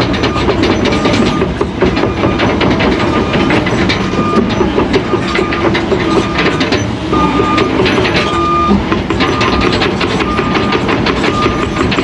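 Excavator engine working under load with its hydraulics, as the bucket scrapes and knocks through rocky ground. A short high tone repeats now and then over the engine.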